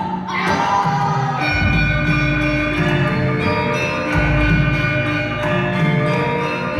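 Performance music in the style of Javanese gamelan: many sustained pitched tones ringing together, with a deep low stroke about every two and a half seconds.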